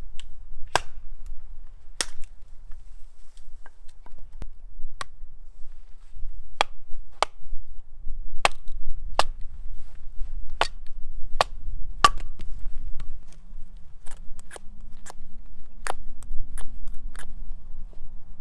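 Hatchet blows splitting firewood into kindling: a run of sharp wooden chops at an uneven pace of roughly one a second.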